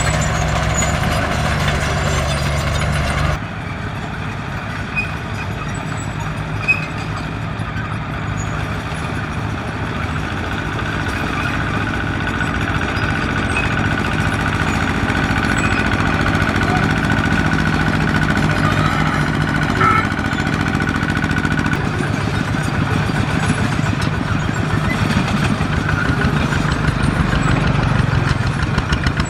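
Diesel engine of heavy earthmoving equipment running steadily under work, with an abrupt change in the sound about three seconds in and a thin whine through the middle.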